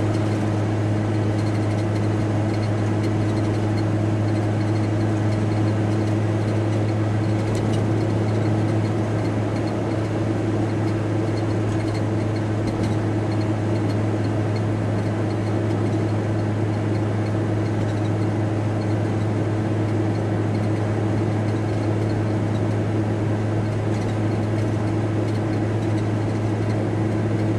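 Steady drone inside a VW T4 Transporter's cab while it drives along: engine and road noise with a strong, even low hum.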